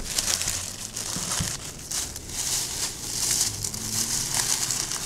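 Crinkling and rustling of sealed trading-card pack wrappers being handled, with many small crackles.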